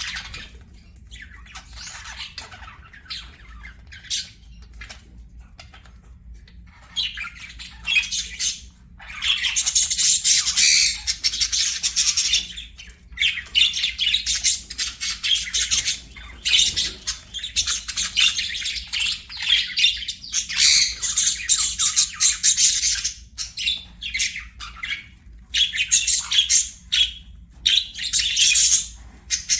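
Budgerigars chirping and chattering, soft at first, then loud, rapid, near-continuous high-pitched warbling from about nine seconds in, broken by short pauses.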